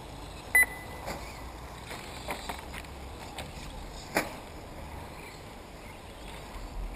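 A short electronic beep about half a second in, typical of an RC race lap-timing system registering a car crossing the loop. It is followed by scattered sharp clacks and knocks from RC trucks running on the track, the loudest about four seconds in.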